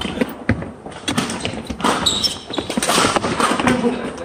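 Badminton rally on an indoor court: a run of sharp racket hits on the shuttlecock mixed with thumping footsteps on the floor, irregularly spaced.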